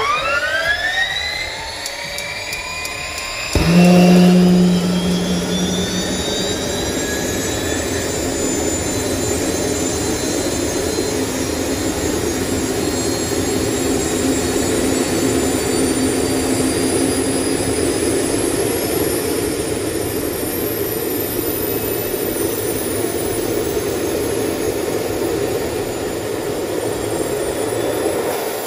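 Allison T-63 turboshaft engine starting: a high whine climbs steeply in pitch, and about three and a half seconds in the sound jumps louder with a low hum. It then runs with a steady rush while the whine keeps creeping up in pitch before levelling off.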